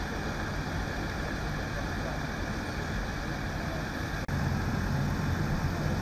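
A vehicle engine idling with a steady low rumble. It cuts out for an instant about four seconds in and comes back a little louder.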